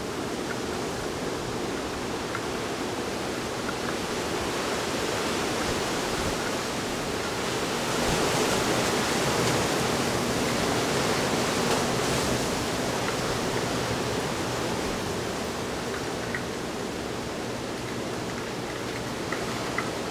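Hurricane wind rushing steadily, swelling into a stronger gust about eight seconds in and easing off again a few seconds later.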